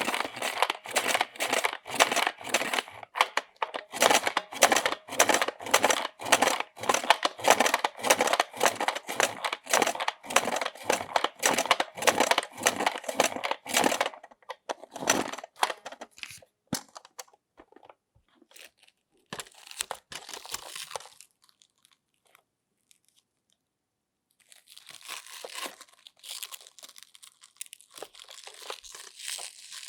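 Slime being squeezed and pressed by hand, giving crunchy, crinkling crackles at about three strokes a second. The strokes thin out about halfway through, stop briefly, and return near the end as a softer, continuous crackling.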